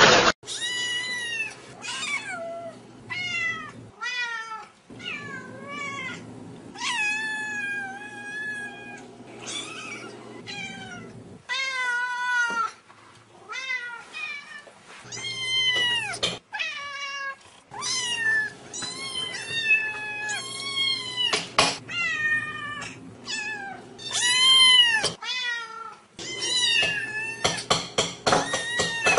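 Domestic cats meowing over and over: a string of short and drawn-out meows from several different cats, some bending up and down in pitch.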